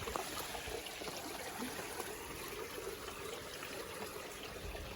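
Steady trickle of running water into a garden pond.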